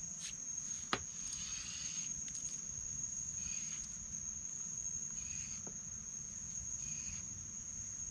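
Insects droning in riverside swamp vegetation: one steady high-pitched tone, with a shorter, lower call repeating about every second and a half. A single sharp knock about a second in.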